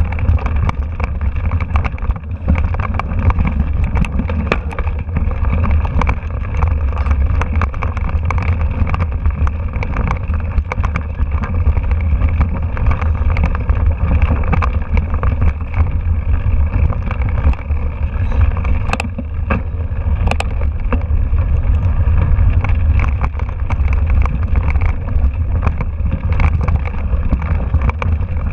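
Mountain bike rattling and jolting over a rocky dirt trail, heard through a camera mounted on its handlebar: a steady low rumble of wind buffeting the microphone, with frequent clicks and knocks from the bike over the stones.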